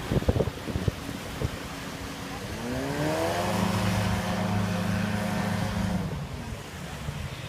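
An engine's drone rises in pitch about two and a half seconds in, holds steady for about three seconds, then drops and fades away, over wind and water noise.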